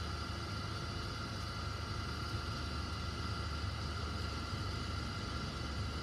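Steady low hum inside a car's cabin while the car sits stopped at a traffic light, its engine idling.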